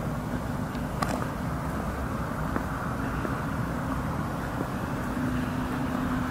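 Steady low rumbling background noise with a faint steady hum, and a single sharp click about a second in.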